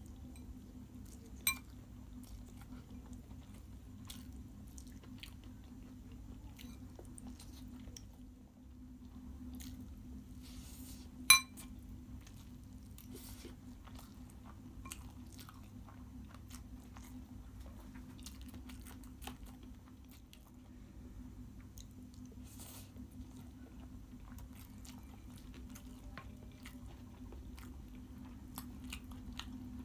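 Close-up chewing and mouth sounds of a person eating Maggi instant noodles, with a metal fork scraping and clinking against a glass bowl. Two sharp, ringing clinks stand out, one about a second and a half in and a louder one about eleven seconds in.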